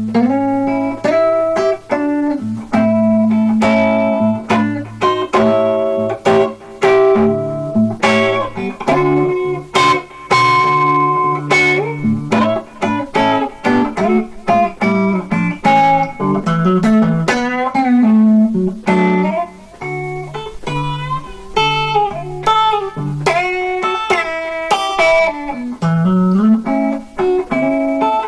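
B&G Little Sister Crossroads electric guitar played through a Marshall Class 5 valve amp: an instrumental blues passage of picked melody notes over bass notes, with a long held high note about a third of the way in and a sliding bass run near the end.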